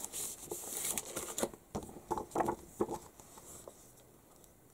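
Clear plastic comic bag crinkling and rustling as a comic and its card backing board are slid out of it, fading about a second and a half in. After that come a few faint handling sounds, then quiet.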